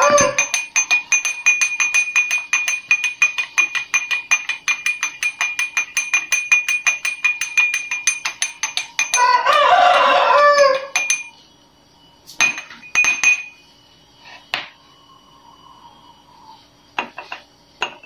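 A spoon clinking rapidly against a drinking glass as oil and water are stirred, about seven clinks a second, stopping about eleven seconds in; a few scattered glass clinks follow. A rooster crows at the start and again about nine seconds in.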